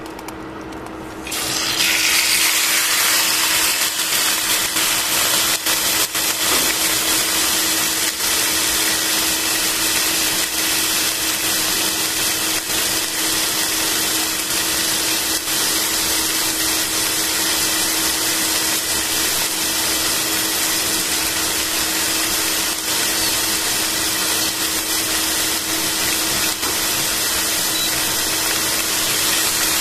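Marinated chicken pieces sizzling in a hot stainless steel pan. The sizzle starts suddenly about a second in as the meat lands in the pan and then holds steady, with scattered small crackles.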